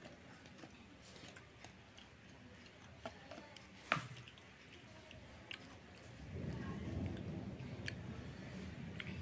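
Eating by hand: chewing, and food being squished and mixed with the fingers on a plate, with a few small clicks and one sharper click. The eating sounds get louder about six seconds in.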